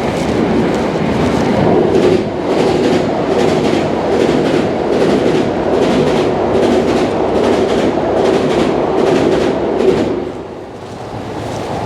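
Train running past on the tracks, its wheels clacking over the rail joints in a steady rhythm over a loud rumble. It fades away about ten seconds in.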